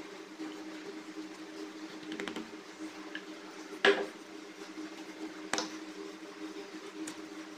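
Hands pressing and patting a potato-stuffed paratha dough ball flat on a floured stone countertop: soft squishing with a few sharp pats, the loudest about four seconds in and another a second and a half later, over a steady low hum.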